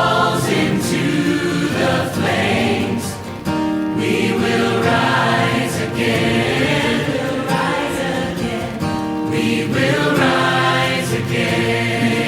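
Background music: a choir singing long held notes over an instrumental track.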